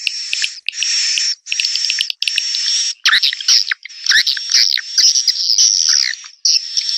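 Swiftlet call sound for luring edible-nest swiftlets to a swiftlet house: buzzy twittering chirps in short bursts about every three quarters of a second. Near the middle they run together into a longer chattering stretch with quick up-and-down sweeps.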